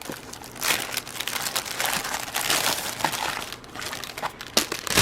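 A packaging bag from a paint-by-numbers kit being handled and pulled open by hand, crinkling and crackling unevenly.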